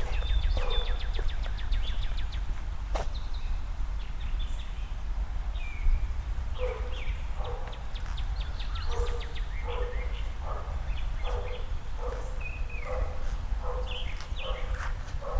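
A walker's footsteps on pavement, a few at first, then a steady pace of about two steps a second from about six seconds in, over a constant low outdoor rumble.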